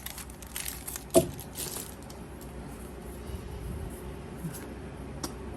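Yu-Gi-Oh! trading cards being handled: soft rustling and light clicks, with one sharp tap about a second in. After that only a low steady hum remains.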